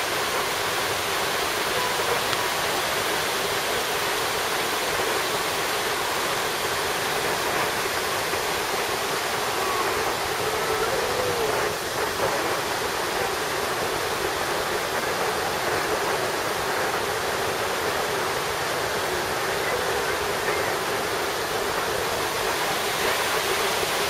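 Steady rush of a small waterfall cascading over rocks into a pool below.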